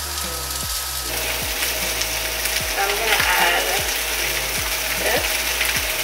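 Black beans and diced vegetables sizzling in a frying pan while being stirred with a wooden spoon; the sizzle gets louder about a second in. A steady low beat of background music runs underneath.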